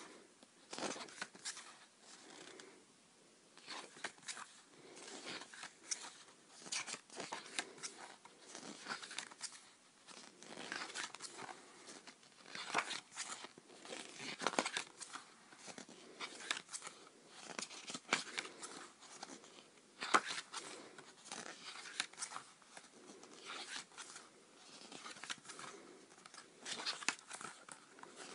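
Paper and plastic album packaging rustling, crinkling and tearing in irregular handling sounds as the CD album's inserts are unpacked.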